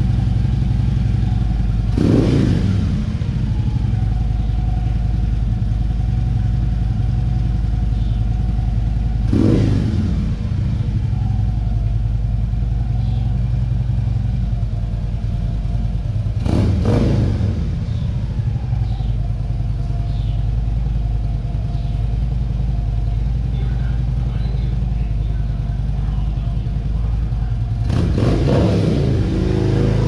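Harley-Davidson Street Glide's V-twin engine running steadily, revved up and falling back four times, at roughly seven-second intervals, after a rear wheel and brake job.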